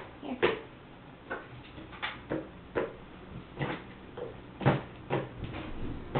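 Irregular knocks and taps of a child's hands on a plastic bowl and high-chair tray during finger-feeding, about two a second and of uneven strength.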